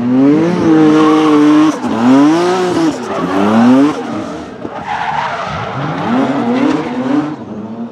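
Supercharged BMW M3 E46's S54 straight-six engine revving up and down over and over while drifting, with the rear tyres squealing and skidding. The sound fades out near the end.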